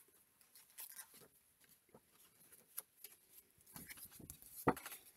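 Faint rustling and light taps of a small paper picture book's pages being turned and handled, with a sharper knock near the end.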